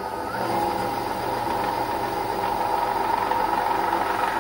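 Craftsman 14-inch band saw on a test run with its newly fitted variable-speed servo motor, belt on the larger pulley for the lower speed. The motor gives a steady whine over a lower hum from the spinning wheels and belt.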